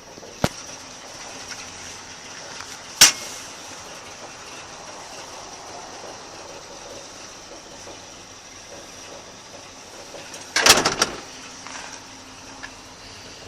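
A few sharp clicks over a steady faint hiss: one about half a second in, a louder one about three seconds in, then a loud cluster of knocks around ten and a half seconds.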